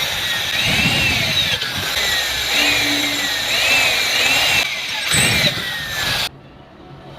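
A power tool motor running loud, its pitch repeatedly sinking and jumping back up; it cuts off suddenly about six seconds in, leaving quiet music.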